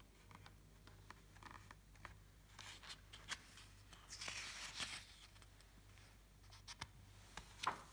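Faint rustling of picture-book pages being handled, loudest for about a second midway, with scattered small clicks over a low steady hum.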